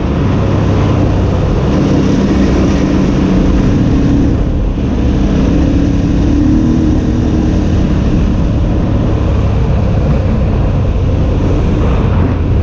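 KTM 950 Adventure's V-twin engine, fitted with an Akrapovic exhaust, running under way with its note shifting a little with the throttle, over steady wind noise on the microphone.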